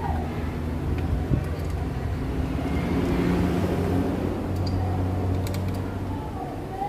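A motor vehicle's engine running nearby with a steady low hum, swelling louder about three seconds in and then easing off, with a few light clicks.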